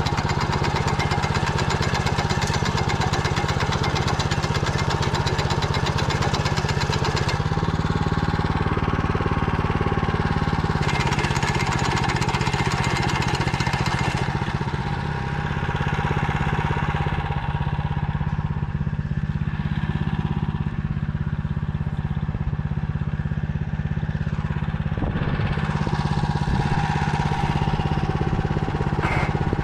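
Motor Sich walk-behind tractor engine running steadily while it pulls a potato digger through the soil. Its pitch steps up slightly about seven seconds in and settles back about four seconds later.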